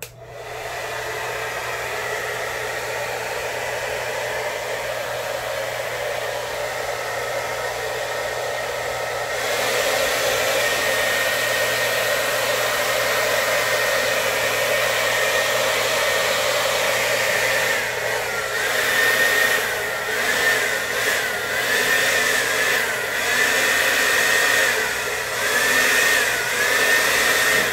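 Hand-held hair dryer blowing steadily on wet acrylic paint, getting louder about nine seconds in. In the last ten seconds its high whine dips in pitch over and over and the level rises and falls.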